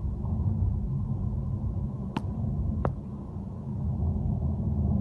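Steady low rumble of road and engine noise inside a moving car's cabin. Two sharp clicks come a little over two seconds in, less than a second apart.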